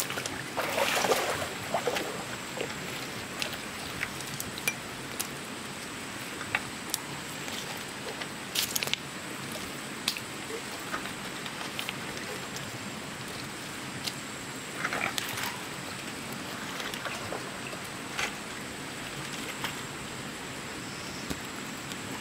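Water sloshing and splashing in shallow water, with scattered sharp splashes and knocks over steady background noise.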